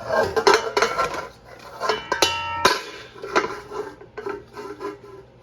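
Metal spoon knocking and scraping against a cooking pot in repeated clatters, with a short ringing clang a little over two seconds in.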